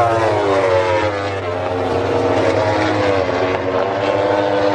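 Racing motorcycle engines going past on the circuit, each engine note sliding down in pitch as the bikes pass and draw away. A second drop in pitch comes about three seconds in, and a steadier engine note carries on after it.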